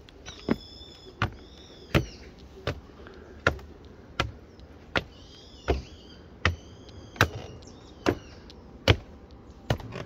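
Footsteps at a steady walking pace, about four steps every three seconds, each a sharp knock. Birds chirp in two short spells over them.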